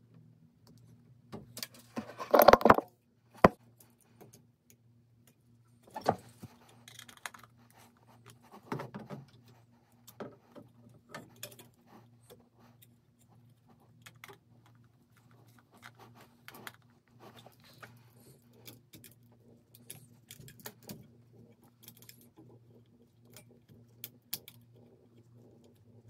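Hand tools working on the wiring and mounting base of a ceiling heat detector: wire strippers and a screwdriver making scattered clicks, snips and small metallic rattles. The loudest is a short burst of scraping about two seconds in, followed by a sharp click, all over a steady low electrical hum.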